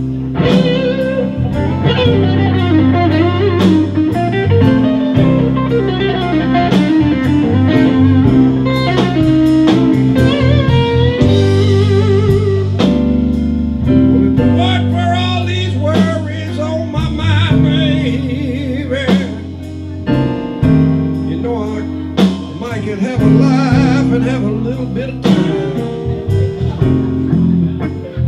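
Live blues band playing: electric guitar lead lines with bent notes over a bass line and a drum kit keeping the beat.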